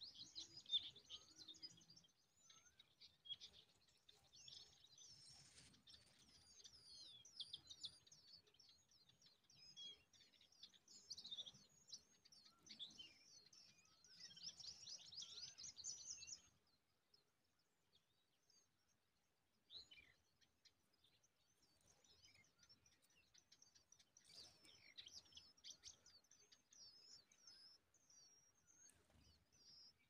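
Cisticola nestlings begging: a quiet, dense chorus of rapid high-pitched chirps. It stops abruptly about halfway through. After a pause of a few seconds it resumes, more thinly.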